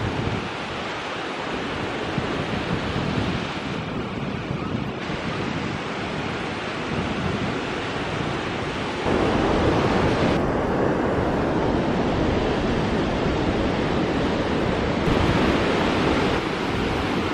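Ocean waves washing onto a sandy beach, a continuous rush of surf with some wind on the microphone. The surf gets suddenly louder about nine seconds in.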